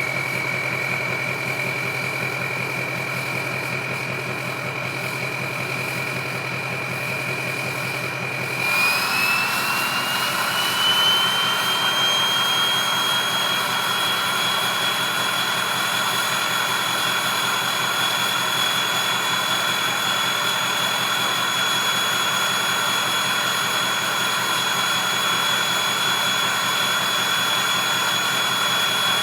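2003 Ford 6.0 Powerstroke V8 turbodiesel idling through a 4-inch straight pipe, its turbocharger whistling steadily at idle. About nine seconds in the whistle climbs in pitch over a few seconds, gets a little louder, and then holds at the higher pitch.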